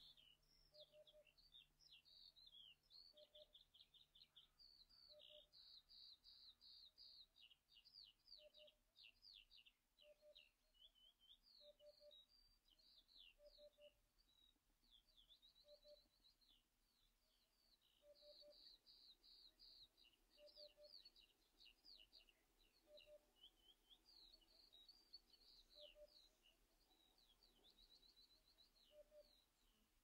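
Faint birdsong: a small songbird sings fast, high chirps and trills. Under it a low two-note 'hoop-hoop' repeats every second or two, typical of a Eurasian hoopoe's song.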